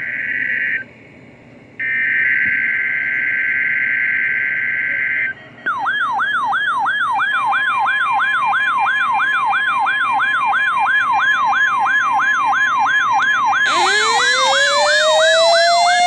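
Weather radio receiving a NOAA Weather Radio required weekly test. First come two bursts of the buzzing SAME data header, a second apart. Then the receiver's alert siren sounds, a tone sweeping down about three times a second, over a steady warning alarm tone. Near the end a second, slower siren wail rises in and joins it.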